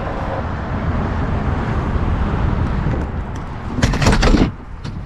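Road and engine noise of a motorhome driving on the highway: a steady low rumble. About four seconds in comes a brief, much louder rush of noise, after which the rumble is quieter.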